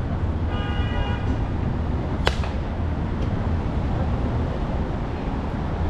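A single sharp crack of a softball impact about two seconds in, over a steady low rumble of wind and traffic.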